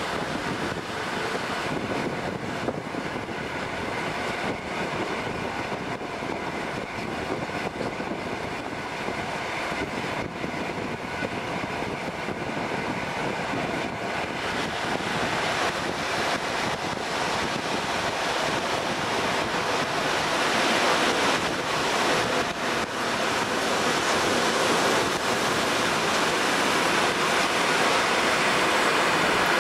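Rush of wind on the microphone from an open window of a moving passenger train, over the steady running noise of the train on the rails. A faint steady whine sits under it in the first half, and the noise grows louder about two-thirds of the way through.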